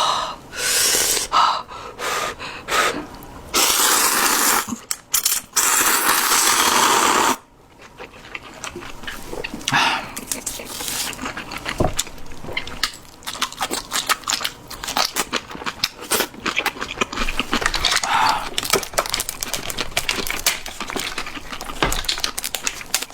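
Close-miked eating of seafood ramen: several long, loud slurps of noodles and broth in the first seven seconds, then wet chewing with many small clicks.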